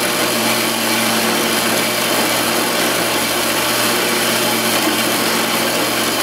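A power saw running steadily as it cuts through thick-walled square steel tubing clamped in the saw's vise: a loud, even cutting noise over a low motor hum.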